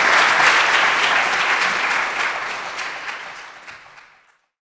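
Audience applauding, the clapping fading away and stopping about four seconds in.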